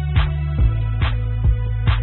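Background music with a steady beat: drum hits alternating about twice a second over a sustained low bass line.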